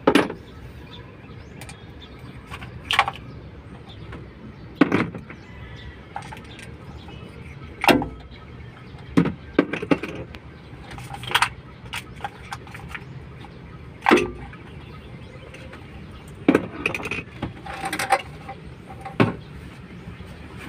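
About a dozen sharp knocks and clicks at irregular intervals, one every one to three seconds, from hand tools and parts being handled on the diesel engine of a Kia Bongo 3 as its high-pressure fuel pump is taken off.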